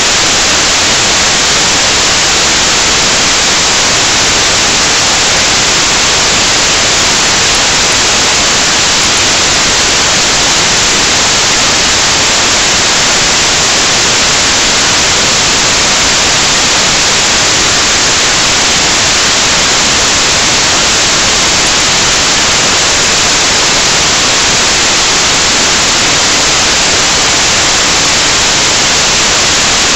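Loud, steady static hiss like white noise, with no other sound: a fault in the recorded audio track, where the soundtrack has dropped out and been replaced by noise.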